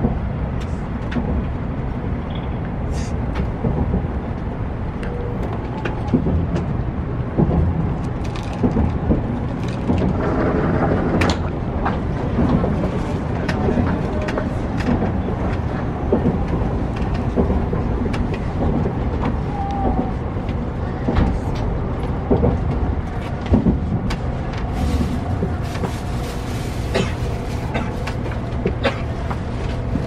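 Cabin noise of a 700 series Shinkansen car running slowly into its terminal station: a steady low rumble from the running gear, with frequent short clicks and knocks.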